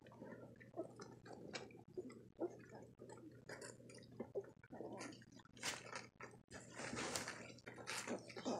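Two-week-old puppies wrestling and mouthing each other, with small high squeaks and whimpers among the rustling of the blanket and wet mouthing sounds.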